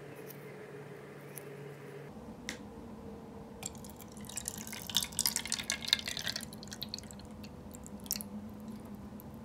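Water poured from a glass jug into a plastic mould, splashing and trickling. The splashing is loudest about halfway through and thins to lighter spatters near the end.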